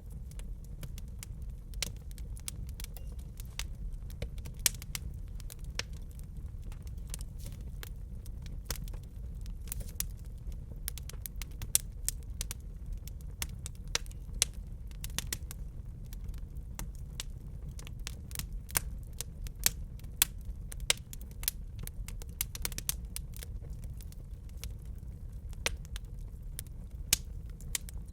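Wood fire crackling in a fireplace: frequent irregular pops and snaps, a few of them sharper and louder, over a low steady rumble.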